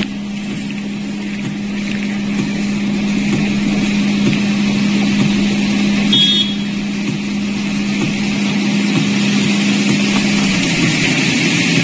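Steady outdoor noise of a flooded, rain-wet street, with a steady low hum that stops about ten and a half seconds in. A brief high ring comes about six seconds in.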